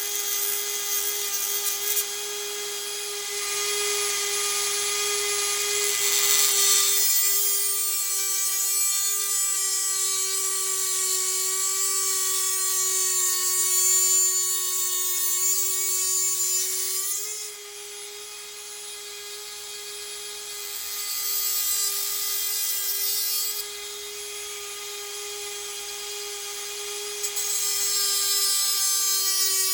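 Dremel 4000 rotary tool running at a steady high-speed whine while grinding a steel package-opener blade to shape, the grinding hiss coming and going as it is pressed in. About halfway through, the pitch lifts briefly and the grinding eases off as the load comes off, then it grinds again near the end.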